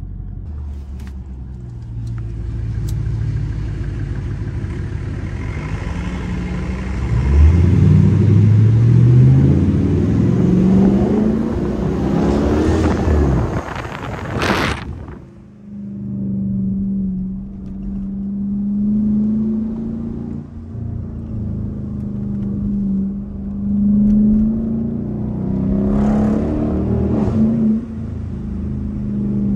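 Straight-piped 2021 Dodge Durango R/T's 5.7-litre HEMI V8, heard from inside the cabin. It accelerates hard for several seconds with the exhaust note climbing in pitch, and a short sharp burst comes at the top of the pull about halfway through. It then settles into a steady exhaust drone while cruising, swelling briefly near the end.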